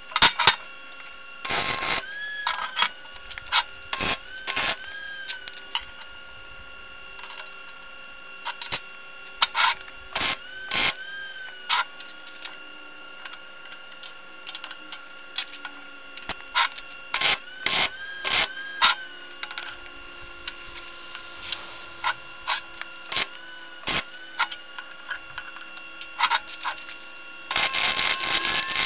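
Steel plates and a metal square being set down, shifted and tapped on a steel bench: scattered clinks, knocks and short scrapes. Near the end a MIG welder strikes its arc and runs with a steady crackle.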